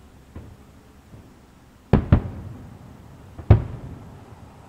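Aerial firework shells bursting at a distance: a faint thump, then a loud double bang about two seconds in and another single bang about a second and a half later, each trailing off in a rumbling echo.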